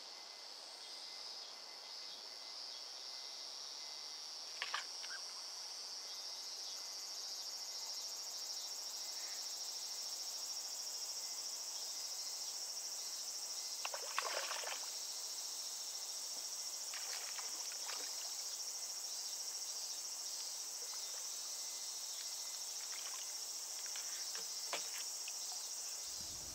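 Steady, high-pitched insect chorus in summer, slowly growing louder, with a few brief soft noises now and then.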